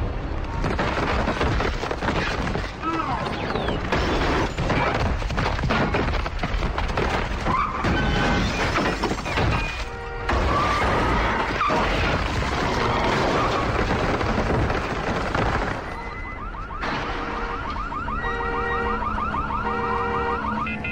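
Dense film sound-effects mix of repeated crashes and impacts under music. About three-quarters of the way through it gives way to a steady, evenly repeating electronic alarm beeping, like a car alarm.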